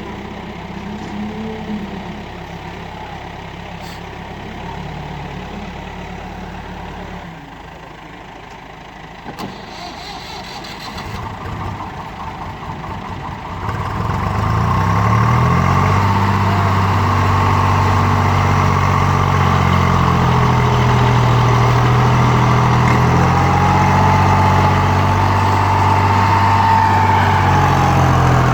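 Heavy machine's diesel engine running low and quiet, then revving up about halfway through and holding at high revs, with a whine that rises and falls near the end.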